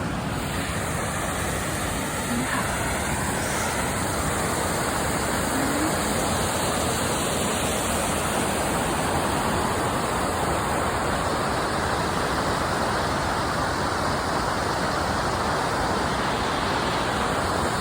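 Waterfall rushing: a steady, even roar of falling water that holds at one level throughout.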